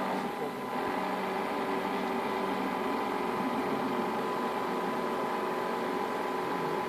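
Steady hum and whine of small motors in radio-controlled model boats running on the water.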